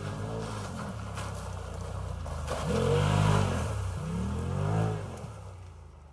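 Side-by-side off-road vehicle's engine running and revving as it drives, the revs rising and falling twice, then fading out.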